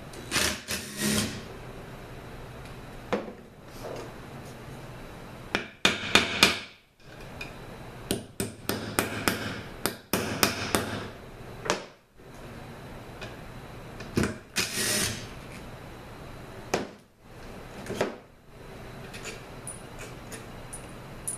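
Cordless drill-driver with a Torx bit spinning out the bolts of an automatic transmission's pump in short runs, and a hammer tapping on the aluminium pump assembly. The sound comes in several short clusters of sharp knocks and clicks.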